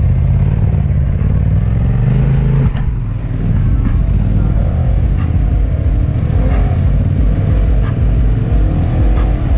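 Engine of a Polaris Ranger side-by-side UTV running under load as it churns through deep mud.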